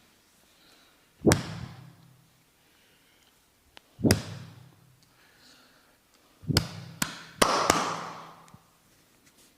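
Percussive massage strikes landing on a person's body: three heavy thumps a few seconds apart, then a quick run of three sharper strikes near the end.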